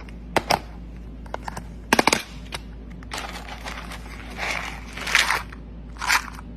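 Dog chewing dry food, with sharp crunches early on and about two seconds in, then a run of crackling chewing.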